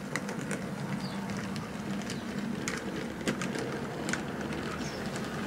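OO gauge model goods train running past: wagon wheels clicking irregularly over the rail joints above a steady low hum.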